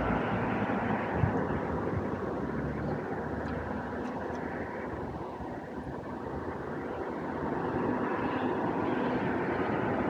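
Steady rushing rumble of distant vehicle noise. It fades down about halfway through and swells again near the end, with a few faint knocks.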